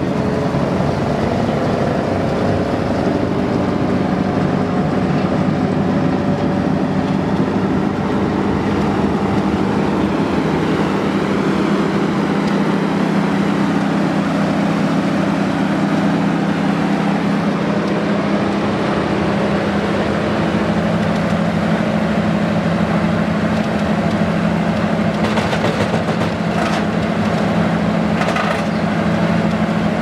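Wood chipper's Ford six-cylinder gas engine running steadily at working speed with the chipper drum turning. Near the end, sharp cracking and snapping starts as branches are fed in and chipped.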